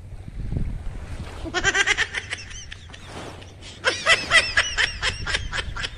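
High-pitched laughter in two quick fits, one starting about a second and a half in and a longer one near four seconds, over a low wind rumble on the microphone.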